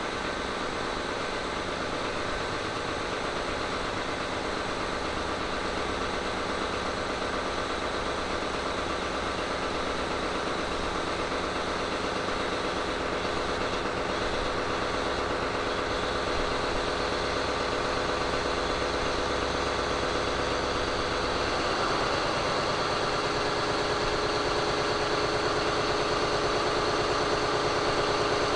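Caterpillar 3508B V8 twin-turbo diesel engine running steadily on a dynamometer. About three-quarters of the way in its pitch rises as it picks up speed, and it gets slightly louder toward the end.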